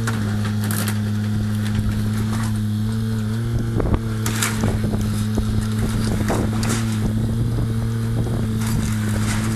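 Demolition machine's engine running steadily, with scattered cracks and knocks of the house being broken up, the loudest about four seconds in.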